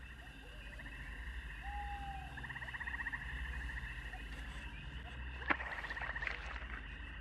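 Bog ambience of trilling frogs: a fast, even pulsing trill that comes in about a second in and grows stronger, with one sharp click about five and a half seconds in.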